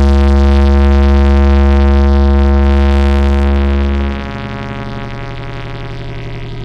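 Music from a large sound-system rig: a very loud held synthesizer bass note that drops to a quieter, higher held tone about four seconds in.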